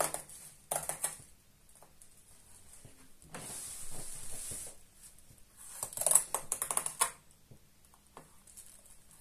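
Plastic packaging crinkling and a protective strip being peeled off a new air fryer's plastic body: a few sharp crackles about a second in, a steady tearing hiss for about a second in the middle, then a quick run of crackles a little later.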